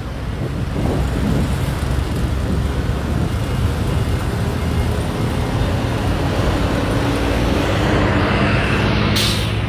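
Road traffic with heavy trucks running past, a steady low engine rumble that grows louder toward the end as a vehicle comes close. A short sharp hiss cuts through about nine seconds in.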